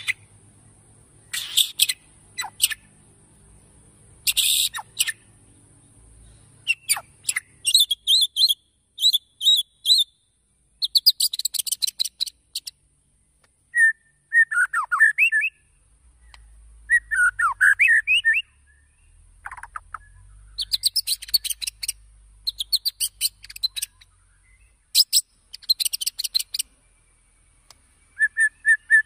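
White-rumped shama singing a varied song in short phrases of fast trills, rapid repeated notes and quick slides, with brief pauses between phrases.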